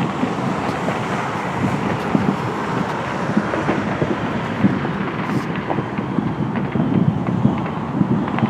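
Continuous rumble of many distant fireworks going off across a city, with scattered small pops and crackles.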